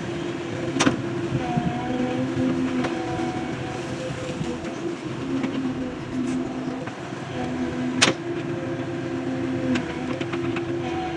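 JCB excavator working: the diesel engine runs steadily under a pitched hydraulic whine that comes and goes as the arm moves, with two sharp metal clanks, about a second in and, loudest, about eight seconds in.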